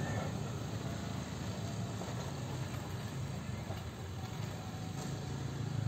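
Low, steady rumble of a KRL electric commuter train moving away down the line after passing.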